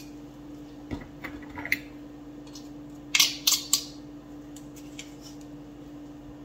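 Handheld garlic press squeezing a garlic clove over a bowl: a few light clicks, then three short, sharp crunching sounds a little over three seconds in, with a faint steady hum underneath.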